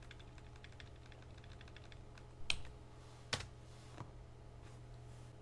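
Computer keyboard keys being pressed: a quick run of faint clicks, then three louder single keystrokes about two and a half, three and a half, and four seconds in, over a steady low hum.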